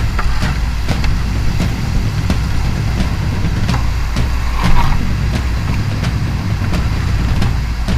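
Whitewater rushing, heard as a steady low rumble with hiss, broken by frequent short knocks and splashes.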